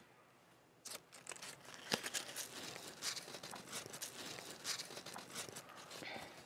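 A crumpled sheet of paper being unfolded and smoothed out by hand, crinkling and crackling, starting about a second in and stopping just before the end.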